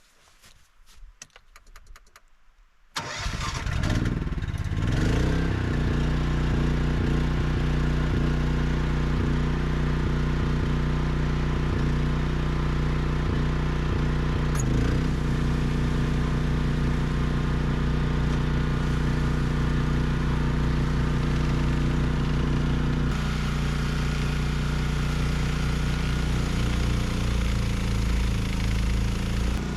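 Honda HSM1380i snowblower engine starting about three seconds in, its pitch climbing briefly before it settles into a steady run; the hiss grows stronger about three quarters of the way through.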